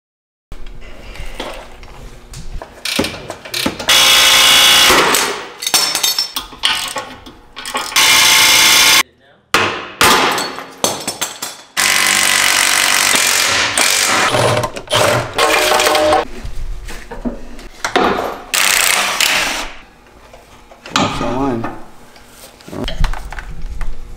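Air impact wrench hammering in several short bursts of a second or two, with lighter tool clatter between them, as bolts are run off the car's underside.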